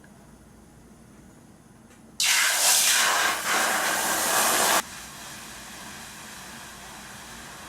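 A loud, even hiss that starts abruptly about two seconds in, lasts about two and a half seconds and cuts off suddenly, leaving a fainter steady hiss.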